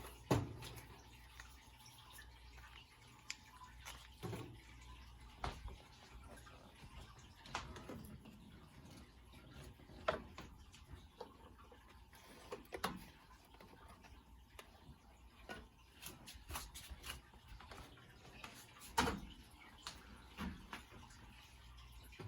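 Scattered light knocks and clicks from items being handled in a kitchen, irregular and a few seconds apart, over a steady low hum.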